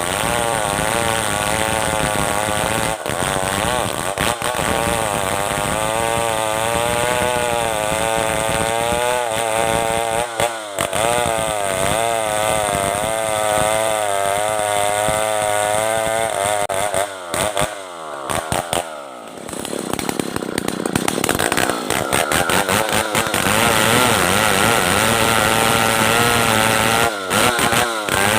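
Stihl 070 two-stroke chainsaw running under load while cutting merbau timber, its engine pitch wavering up and down as it works in the cut. About 18 seconds in the revs fall away briefly, then climb again to a higher, steady run.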